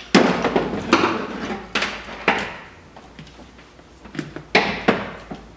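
Hand tools being worked on automotive wiring: sharp snips and clicks of wire cutters and pliers with handling clatter. There are four clicks in the first two and a half seconds and two more about four and a half seconds in.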